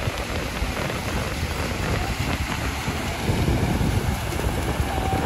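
Wind buffeting the microphone in a gusting low rumble, over the wash of breaking surf.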